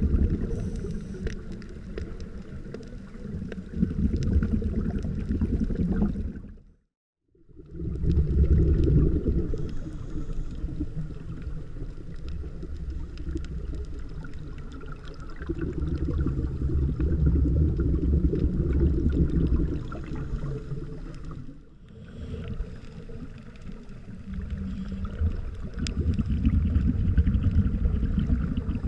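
Underwater sound picked up through a camera housing: a low rumble with gurgling water that swells and fades every few seconds, cut off by a moment of total silence about seven seconds in.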